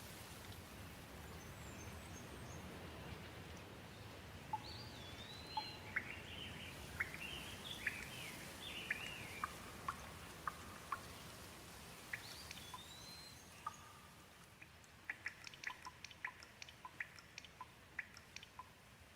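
Gentle rain falling steadily, with a bird calling in short chirps and rising-and-falling whistles from about four seconds in. Near the end the rain eases and a scatter of sharp single drips takes over.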